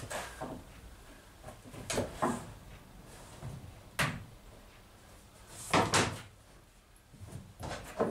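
Wood knocking on an upturned fibreglass boat hull as a curved wooden bilge runner and small wooden pieces are handled into place: a few separate sharp knocks and clatters, the loudest a close pair about six seconds in.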